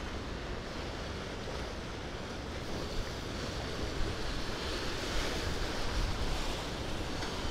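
Wind buffeting the microphone over choppy sea waves washing along the shore: a steady rushing noise with a low rumble.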